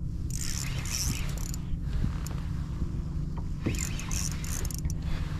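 Fishing reel being cranked in two spells of fast, fine clicking while a hooked lake trout is reeled in, the first about half a second in and the second near four seconds in, over a steady low rumble.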